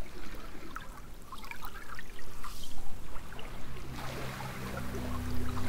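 Small waves lapping and splashing at the water's surface. A low, steady music drone fades in over them about two thirds of the way through.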